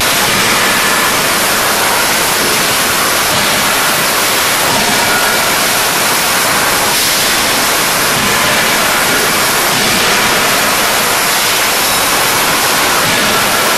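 Forging-shop din: a loud, steady, hiss-like wash of machine noise with no distinct hammer blows standing out.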